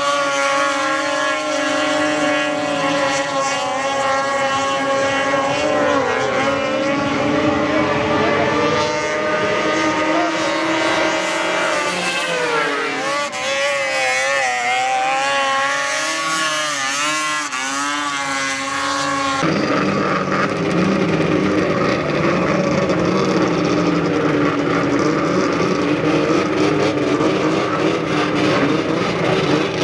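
Racing snowmobile engines running at high revs as the sleds skim across open water, their pitch wavering and gliding up and down through the turns. About twenty seconds in the sound changes abruptly to a rougher, more even engine noise.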